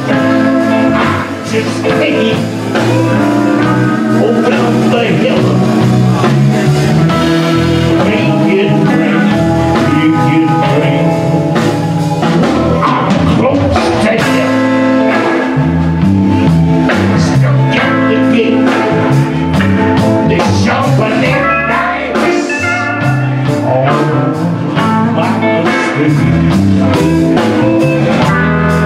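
Live blues band playing: electric guitars, keyboard, violin and drums, with a man singing.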